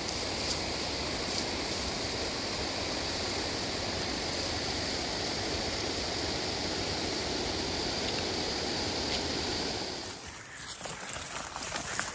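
Steady rushing noise that cuts off abruptly about ten seconds in.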